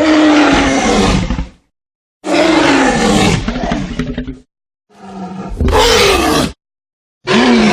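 Godzilla roar sound effects played one after another: three loud roars, each about one and a half to two seconds long with a falling pitch, separated by dead silence, and a fourth beginning near the end.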